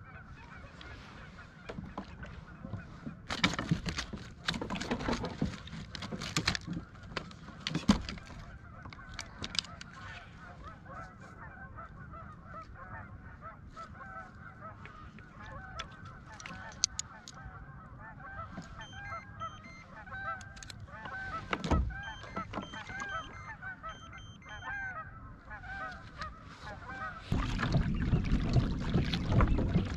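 Many geese honking over and over, with scattered knocks and one loud thump. Near the end a steady rumble of wind and boat noise comes in.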